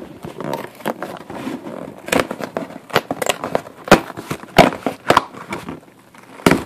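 Cardboard shipping box being torn open by hand: a run of ripping and crackling with many sharp rips, the loudest a little before and after four seconds in.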